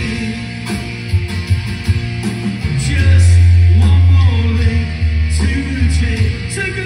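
Live rock music through a PA: a guitar strummed hard in a driving rhythm over a strong, pulsing bass.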